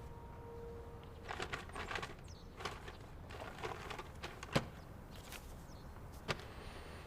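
Faint scattered rustling and clicking, with a sharp click about four and a half seconds in and another near the end.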